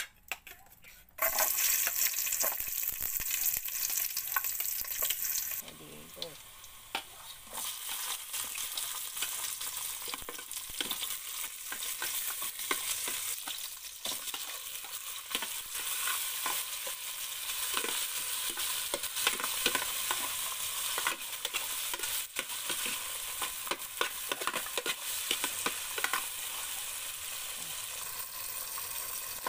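Food sizzling in hot oil in a pan, the sizzle starting suddenly about a second in, then stirred with a utensil that clicks and scrapes against the pan.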